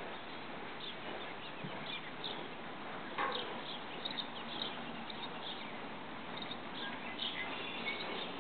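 Small birds chirping, short scattered calls over a steady background hiss.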